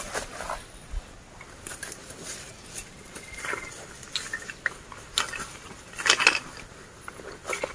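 Dry bamboo leaf litter crackling and rustling in scattered short bursts under a crouching person's feet and hands, with the loudest cluster about six seconds in.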